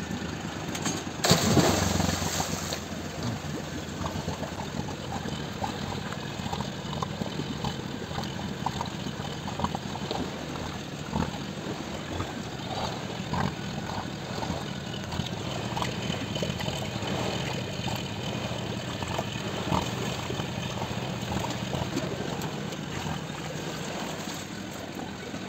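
40 hp four-stroke outboard motor idling steadily, with a brief loud rush of noise about a second and a half in.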